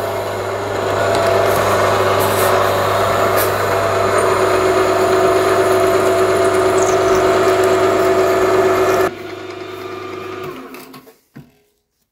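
Milling machine spindle running steadily with a steady whine and hum as a spiral-fluted cutter works into the big end of a crankshaft. About nine seconds in the machine is switched off and winds down to a stop a couple of seconds later.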